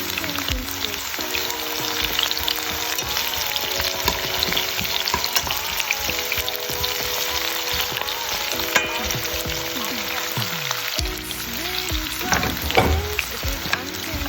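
Food sizzling and crackling as it fries in a pan, stirred now and then, with a few knocks near the end.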